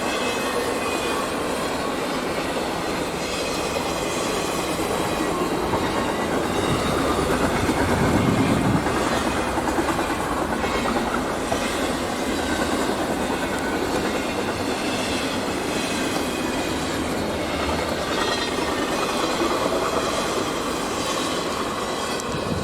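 Freight train cars rolling steadily past, wheels clacking over the rail joints, with a faint high wheel squeal.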